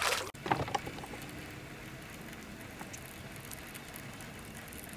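Faint, steady lapping of lake water and breeze around a boat, after a few brief knocks in the first second.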